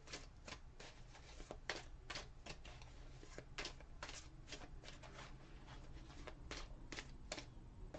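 A tarot deck shuffled by hand, with soft, irregular card slaps and snaps, sometimes two or three in quick succession.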